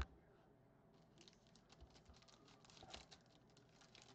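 Near silence: room tone with a brief click right at the start and faint, scattered light ticks.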